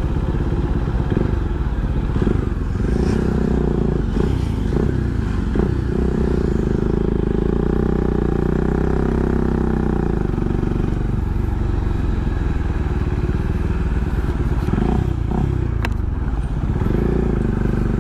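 A motorcycle engine running steadily, its pitch rising and falling a few times near the start and again near the end.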